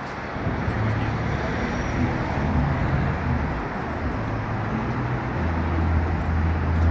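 Steady urban road traffic noise with a low engine hum from motor vehicles, which grows stronger about five seconds in.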